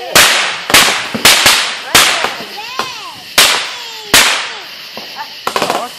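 Consumer fireworks cake firing: about ten sharp bangs at uneven intervals of half a second to a second, each with a short fading tail. Faint whistling tones rise and fall between the bangs, and a quick run of small crackles comes near the end.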